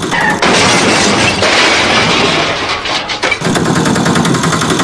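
Loud, crackling rush of water washing over a muddy plastic toy vehicle, with abrupt shifts in tone about half a second in and again just past three seconds.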